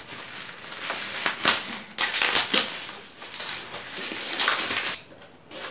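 Plastic courier mailer crinkling and rustling as it is torn open and handled by hand, in a run of irregular crackly rustles that die down near the end.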